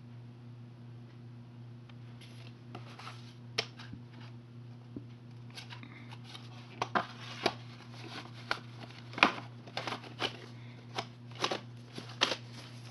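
Plastic VHS cassettes and cases being handled: irregular sharp clicks and light knocks, sparse at first and coming in quick succession from about halfway, over a steady low hum.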